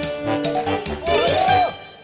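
Playful comedy intro music with bell-like chiming notes over a regular beat. About a second in comes a swooping, sliding sound effect, and then the music fades out.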